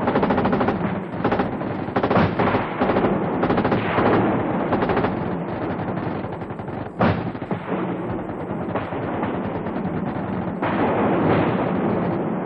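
Battle gunfire: automatic rifles and machine guns firing in rapid, overlapping bursts. One heavier single blast about seven seconds in stands out above the rest.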